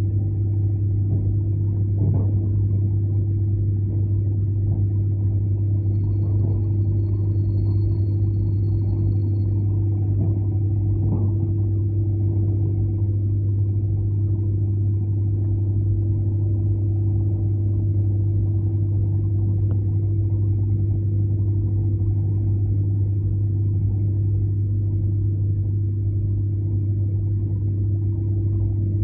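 Inside a moving ER9M electric multiple unit: a steady deep hum with the even running rumble of the wheels on the rails, and a couple of faint knocks.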